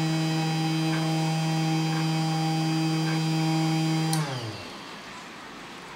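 Spindle motor of a small desktop PCB milling machine running with a steady hum and a faint tick about once a second, then switched off about four seconds in and winding down to a stop within half a second.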